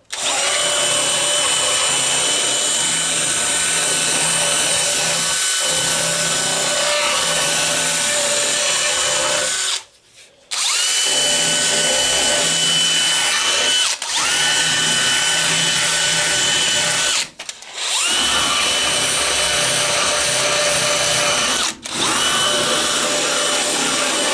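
Electric drill motor running at full speed in long runs, with a steady high whine that spins up each time it is triggered. It stops briefly four times and starts again.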